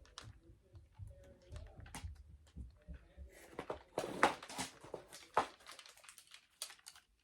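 Light clicks, taps and rustles of small objects being handled, busiest about halfway through.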